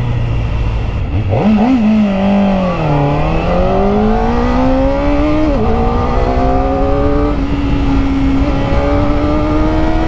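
Kawasaki ZX-4RR's 399 cc inline-four engine accelerating hard under way, its pitch climbing through the revs and dropping at an upshift a little past halfway, then climbing again. It runs through the stock exhaust with its catalytic converter, which the rider considers choked and holding back power.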